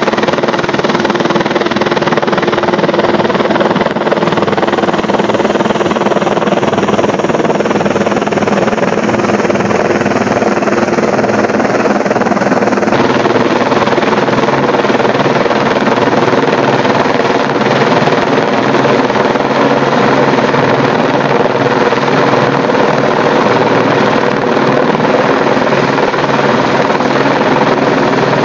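Helicopter flying low overhead, towing a line for stringing power cables. Its rotor and engine make a loud, steady noise throughout.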